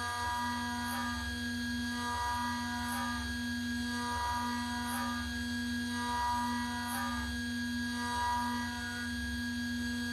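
Spindle of a 6040 CNC router running with a steady hum while the machine thread mills steel. Higher whining tones from the axis motors come and go in a cycle that repeats about every two seconds, with faint ticks as each pass turns.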